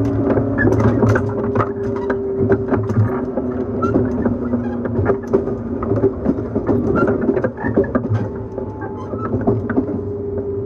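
Onboard running sound of a JNR 115 series 1000 subseries electric train motor car: its MT54 traction motors and gears hum at a steady pitch, with many short clicks and rattles from the running train.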